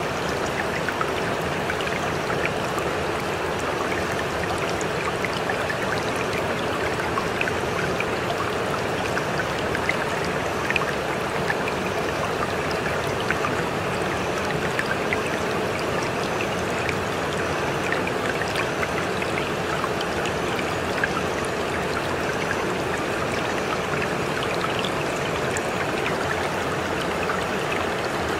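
Running water like a brook or stream, with a steady rush and scattered small splashes and drips.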